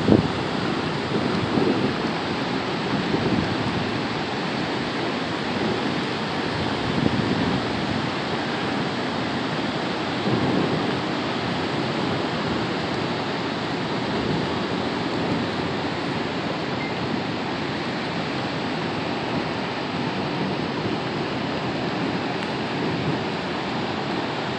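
Heavy rain pouring steadily, a dense even hiss, with a few brief louder low surges in the first half.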